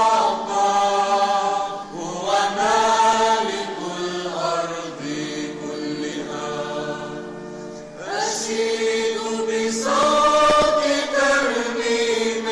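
Church choir singing an Arabic hymn in long held phrases, with organ accompaniment; new phrases begin about two and eight seconds in.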